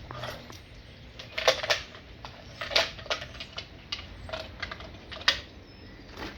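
A series of irregular sharp clicks and taps, a few louder than the rest, like hard objects being handled.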